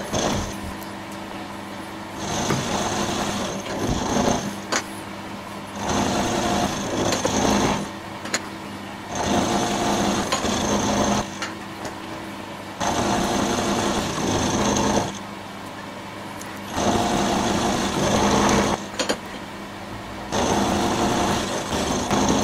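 Herless combination mill's end mill cutting the head of a bolt blank in repeated light passes, with the footage sped up sixfold. About six stretches of cutting noise, each about two seconds long, come every three and a half seconds over the steady hum of the spindle motor.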